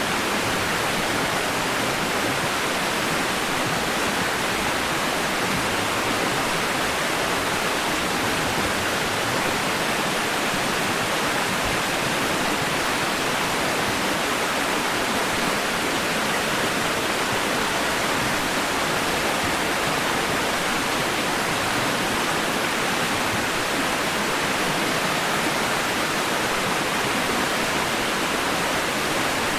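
Steady white noise for lulling a baby to sleep: an even, unchanging hiss, strongest in the middle of the range and thin in the bass.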